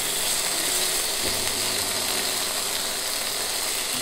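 Marinated chicken breasts frying in a hot pan, a steady sizzle and crackle as the pieces are turned over with tongs.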